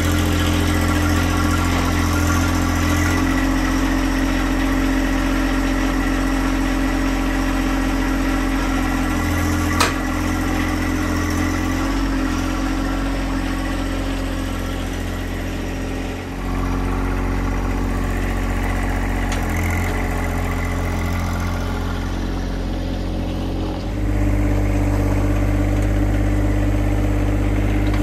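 John Deere 2025R compact tractor's three-cylinder diesel engine running steadily, with small shifts in its tone a couple of times. There is a single sharp knock about ten seconds in.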